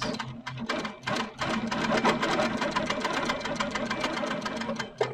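Sit-down longarm quilting machine stitching at a fast, even rate during free-motion feather quilting. It eases off briefly in the first second and stops abruptly at the very end.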